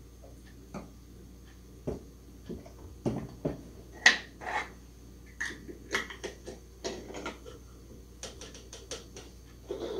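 Kitchen handling sounds: a plastic blender jug and a plastic funnel knocked and set down on a countertop, with scattered clicks and clinks as a smoothie bottle is handled. The loudest knock comes about four seconds in.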